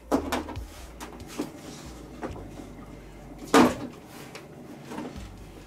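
Parts of a disassembled LED TV being handled on the bench: several knocks and clatters, the loudest about three and a half seconds in.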